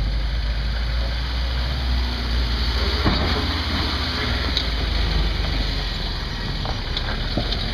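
Engine of a lifted Toyota pickup running low and steady as the truck crawls over a concrete ledge, with a sharp knock about three seconds in.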